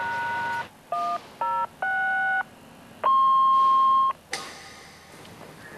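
Fire-station dispatch alert tones: four short two-note dial-type beeps, then one steady tone lasting about a second, signalling a call to the station. A sudden hiss follows about four seconds in and fades.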